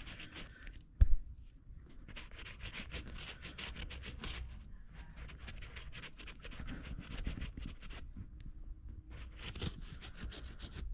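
Wide-tip Sharpie marker rubbing over the white stitching of a black leather seat cover in runs of quick scratchy strokes, inking the stitching black. A single thump about a second in.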